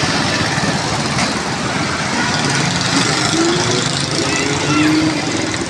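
Motorcycle engine running close by as it passes, over steady street traffic noise.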